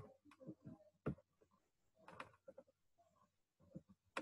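Near silence: quiet room tone broken by a few faint, short clicks and knocks.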